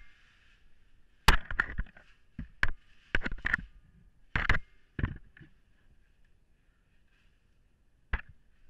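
A caver's helmet, suit and gear scraping and knocking against rock while squeezing through a tight cave passage: a run of irregular scrapes and knocks, a lull of a couple of seconds, then one more knock near the end.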